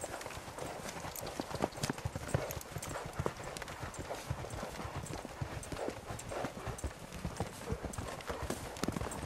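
Hoofbeats of a horse cantering on snow-covered ground, a quick, uneven run of hoof strikes.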